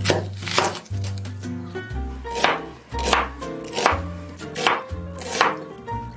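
Chef's knife slicing through a whole onion on a bamboo cutting board: a sharp cut and tap of the blade on the board about every three-quarters of a second, around seven strokes in all.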